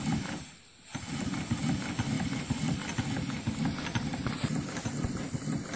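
Twin-cylinder scale model of an 1895 reversible steel mill steam engine running steadily, a fast, even mechanical clatter of its valve gear and crank motion with exhaust chuffs, briefly dropping out just under a second in.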